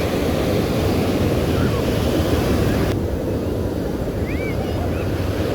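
Ocean surf washing onto the beach, a steady dense wash of breaking waves mixed with wind buffeting the microphone.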